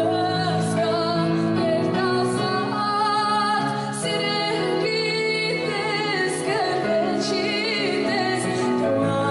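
Background music with a female singing voice over sustained accompaniment.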